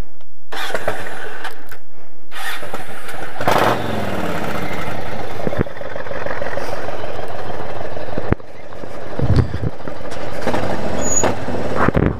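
Yamaha Wild Star V-twin motorcycle engine being started about three and a half seconds in, its pitch rising as it catches, then running.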